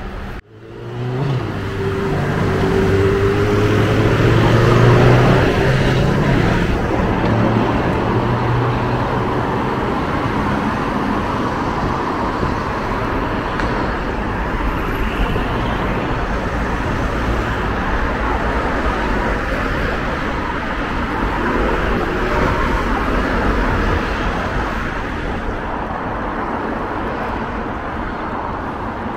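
Busy city road traffic: a vehicle's engine running close by, loudest about five seconds in, over a steady wash of passing cars.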